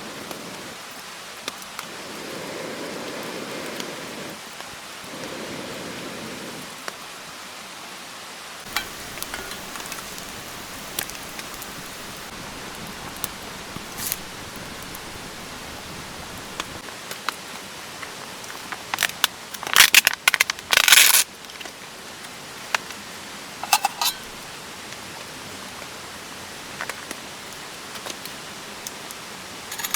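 A steady hiss of water, with scattered small ticks and a loud burst of crackling clicks about twenty seconds in.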